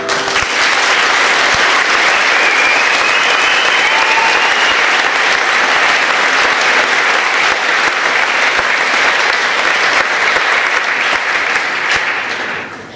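Audience applauding steadily, with a few high whoops or whistles a few seconds in, fading out near the end.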